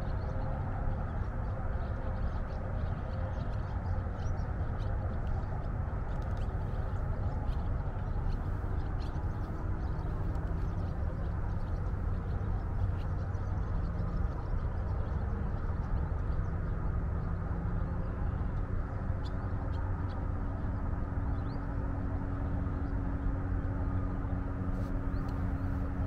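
Steady rumble of highway traffic, with a few faint bird chirps over it.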